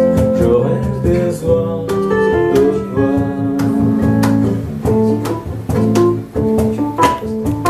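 Instrumental music led by plucked guitar, with a bass line and other instruments underneath; no singing.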